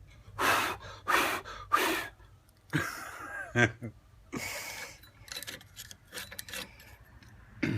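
Short puffs of breath, three in quick succession and a fourth a few seconds later, with a few light clicks between.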